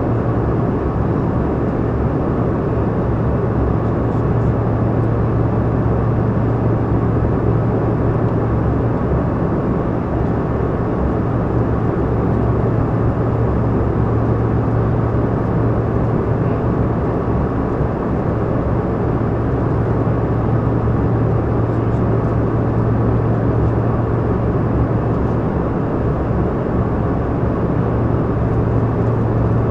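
Steady cabin noise inside a Canadair CRJ200 regional jet in flight: the even drone of its rear-mounted GE CF34 turbofan engines and the rush of air over the fuselage, with a constant low hum underneath.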